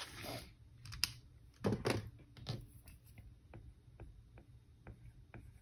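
Cash and paper envelopes being handled: a few soft rustles and taps, then a run of faint, evenly spaced ticks about two to three a second.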